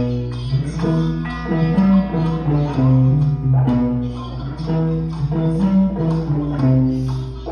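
Guitars playing together, including an electric guitar through an amplifier: a continuous run of picked notes and chords with strong low notes, over a steady low hum.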